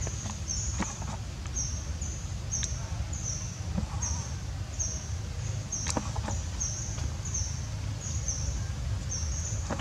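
Outdoor forest ambience: a short, high chirp repeats about twice a second over a steady low rumble, with a few sharp clicks.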